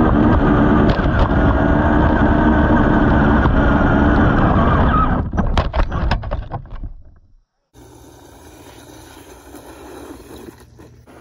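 Axial RC crawler's electric motor and gears whining loudly, heard through a camera mounted on the truck, with a run of knocks and clatter about five seconds in as it bounces over the dirt. After a cut, a much quieter, steadier sound of the crawler driving on dirt, heard from a distance.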